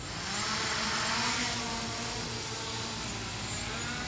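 DROCON Bugs 3 quadcopter's four brushless motors and propellers starting up and running: a sudden onset of a buzzing whine with a rush of air, rising in pitch over about the first second, loudest about a second in, then holding steady.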